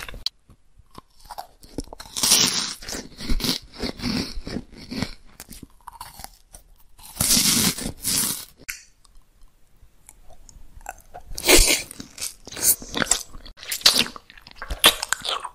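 Close-miked crunchy bites and chewing of food, in separate bursts with short quiet gaps between them.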